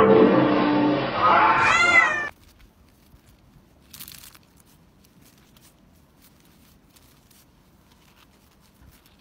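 A cat meowing once, a rising-and-falling call over the loud soundtrack of a television cartoon, all cut off abruptly about two seconds in. After that, only faint rustling and scraping in snow, with one short louder scrape about four seconds in.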